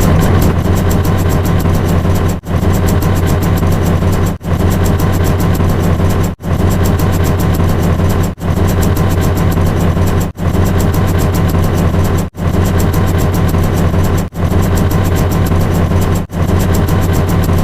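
An engine sound effect with a strong low hum, loud and steady. A short clip is looped over and over, with a brief dropout at each repeat, about every two seconds.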